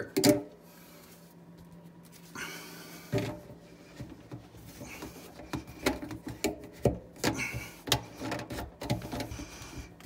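Plastic sink drain fittings knocking, clicking and rubbing as a drain tee and slip nut are handled and slid onto the tailpiece, in a string of light taps with a short scraping hiss about two and a half seconds in.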